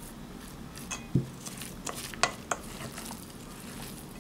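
Wooden spoon stirring a wet minced-pork and vegetable filling in a stainless steel mixing bowl. The mixing goes on steadily, with scattered clicks and knocks of the spoon; the loudest is a low knock about a second in.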